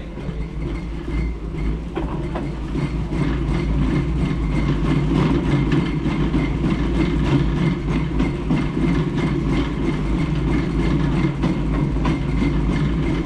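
Metal shopping trolley being pushed along a hard floor, its wheels rumbling steadily and its wire basket and the goods inside rattling and clicking.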